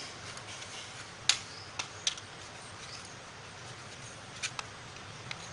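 A few light, sharp clicks of a knife blade against a plate as the crusts are cut off a slice of white bread, the clearest about a second in, over a steady faint hiss.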